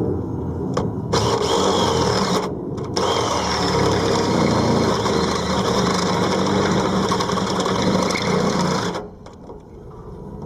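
Power drill turning a step drill bit to open up a hole. It runs in long spells with two brief let-offs in the first three seconds, and stops about nine seconds in.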